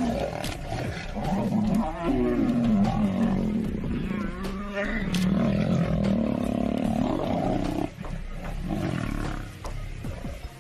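Two male lions fighting, giving loud, rough growls and roars almost without a break, then quieter about eight seconds in.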